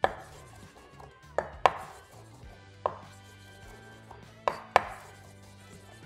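Chef's knife mincing garlic and mentuccia on a wooden cutting board: about six sharp knocks of the blade on the wood, irregularly spaced, two of them in quick pairs.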